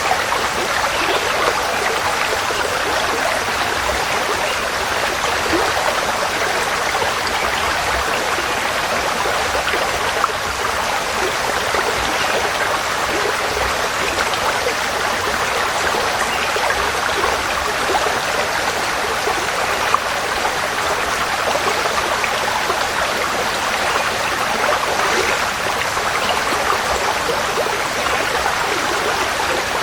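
Forest stream flowing, a steady, even rush of running water.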